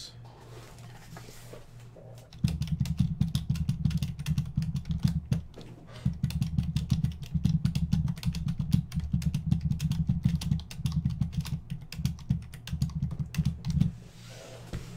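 Fast typing on a computer keyboard: a dense run of quick key clicks with dull thuds, starting about two seconds in and stopping shortly before the end, as a column of numbers is entered one per line.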